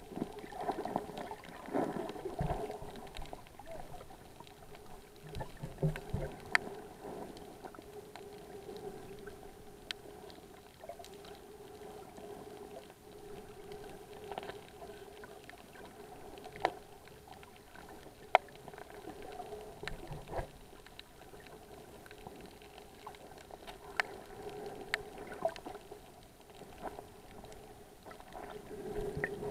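Muffled underwater ambience picked up by a GoPro inside its waterproof housing: a steady low hum with scattered sharp clicks.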